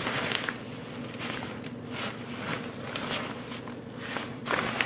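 Ripstop nylon backpack fabric rustling and swishing as it is handled and turned over, in a series of irregular brushes.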